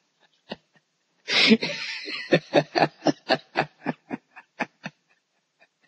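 A man laughing over a video call: a burst about a second in, then a run of short, even laughs, about four a second, that stop a second before the end.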